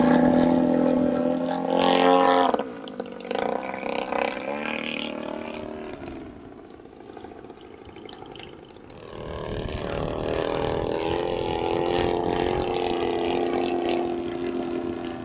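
Radio-controlled aerobatic propeller plane's engine and propeller running at high throttle, cutting back about two and a half seconds in and fading, then building back up to a steady pitch over the last few seconds.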